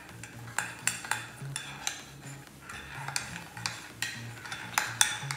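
Metal spoon stirring in a mug, clinking against its sides again and again at an uneven pace, a few clinks a second, as borax is dissolved in boiling water.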